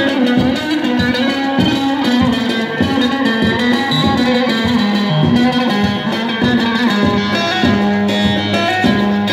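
Amplified Turkish halay dance music: an electric bağlama (saz) plays the melody over a steady drum beat, about three strokes a second.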